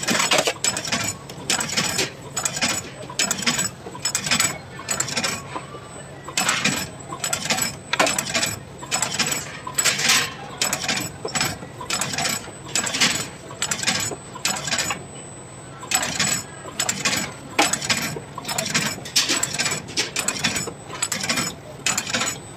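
Wire-cut biscuit machine running, cutting mango biscuit dough into rounds onto a metal tray, with a fast, uneven run of metallic clicks and clacks.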